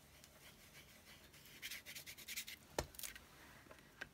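Faint rubbing and scratching of fingers on cardstock, in short strokes, with a sharp click about two-thirds of the way in and a smaller one near the end.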